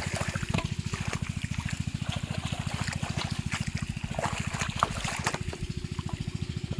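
A small engine running steadily with an even chugging beat, about ten pulses a second. Scattered water splashes and trickling sound over it.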